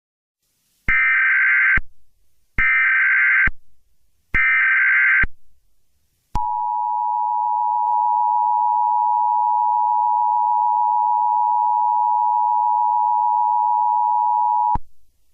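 Emergency Alert System alert tones. First come three one-second bursts of SAME header data tones. Then the EAS attention signal plays: a steady two-tone alarm held about eight seconds that cuts off suddenly.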